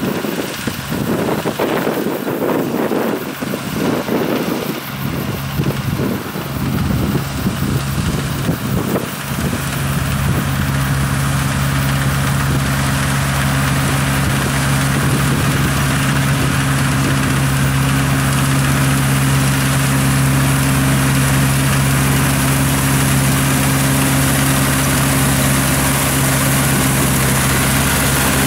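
Tracked rice combine harvester's engine running steadily as it cuts rice and comes closer, growing a little louder. Wind buffets the microphone irregularly for the first several seconds, until the engine hum becomes the main sound about nine seconds in.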